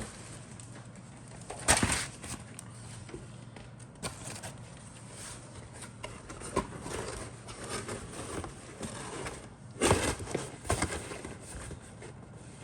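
Handling noise from a plastic model kit's cardboard box and parts: rustling and light knocks, with two louder bursts of rustling, about two seconds in and about ten seconds in.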